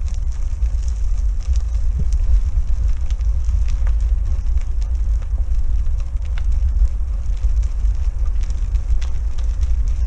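Steady low wind rumble on the microphone, with many scattered clicks and crackles of a 24-inch unicycle tyre rolling over a stony trail.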